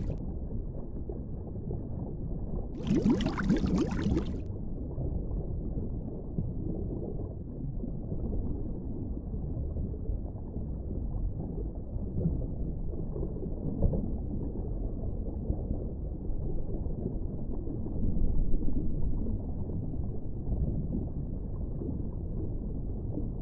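Muffled, steady low underwater rumble, with one burst of bubbling about three seconds in.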